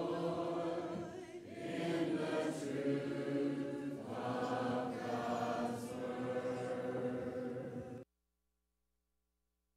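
Congregation singing a hymn a cappella, with many voices in parts and unaccompanied by instruments, in phrases with short breaks between them. The singing cuts off suddenly about eight seconds in.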